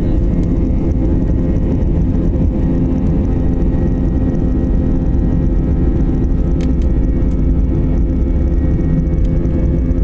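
IndiGo jet airliner's underwing turbofan engine running with the wheels rumbling as the plane rolls along the runway, heard inside the cabin: a loud, steady rumble with a low hum.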